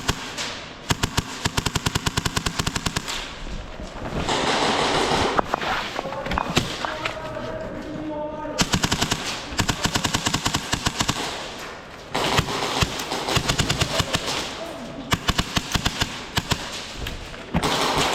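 Airsoft guns firing several rapid full-auto bursts of sharp clacks, with noisy stretches of movement and rustle between the bursts.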